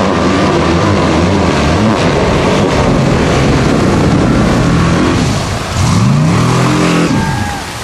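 A Formula Offroad buggy's engine running hard at high revs over a dense rush of churned water. About five and a half seconds in the revs dip, then climb steeply, and they fall away near the end.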